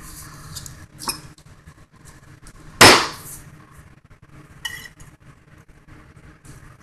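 Kitchen knife chopping down through cooked game hen onto a plastic cutting board: a sharp knock about a second in and a much louder chop about three seconds in. A brief ringing clink follows near the end.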